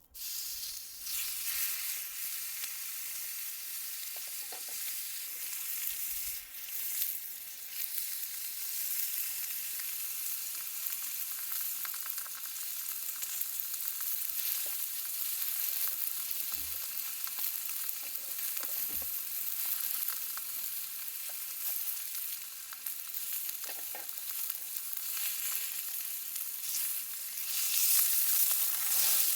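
Thick-cut beef tongue steak sizzling steadily on a hot iron griddle plate over a campfire, getting louder near the end, with a few faint knocks.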